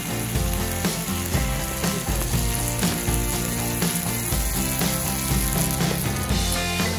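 Background music with a steady beat, over the hiss of fajita meat sizzling in a pan.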